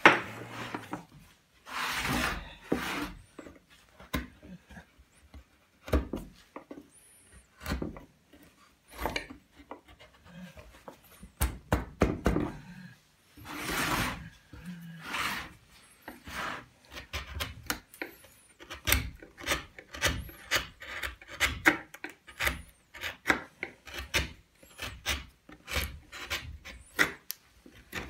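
Hand carving tools cutting and scraping a wooden relief panel: a string of short, irregular cuts that come faster in the second half, with a few longer scraping strokes in between.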